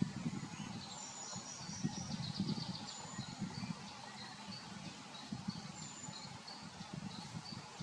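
Small birds singing: short high chirps, whistles and trills repeating throughout, over an irregular low rumble.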